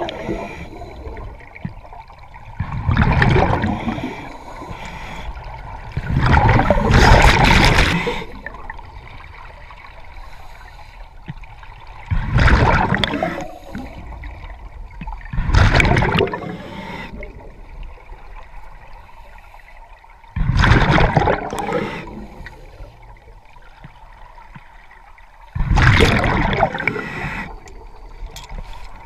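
Scuba diver's regulator exhaust heard underwater: a gurgling rush of bubbles on each exhalation, six breaths a few seconds apart, with a quieter hiss between them.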